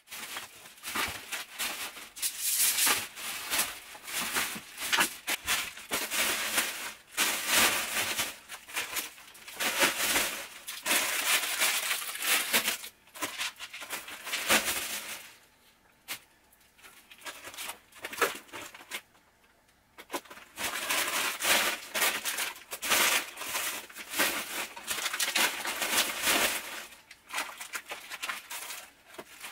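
Plastic bin bag and food packaging rustling and crinkling as items are gathered off the floor and dropped into the bag, with scattered knocks and clatter of tins and packets, and a quieter spell about halfway through.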